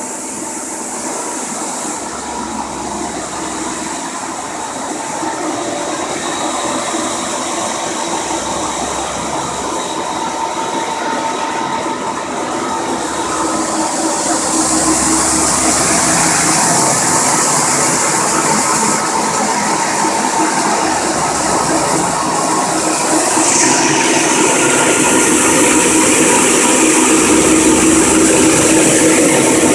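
84-inch Blanchard rotary surface grinder with a 75 hp spindle running and grinding metal: a steady machine hum with a few held tones under a loud hiss of grinding and coolant spray. It grows louder about halfway through and again near the end.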